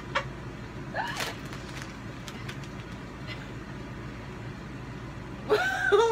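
Low steady room hum with a few faint small clicks, a brief vocal sound about a second in, and a voice with pitch rising and falling near the end.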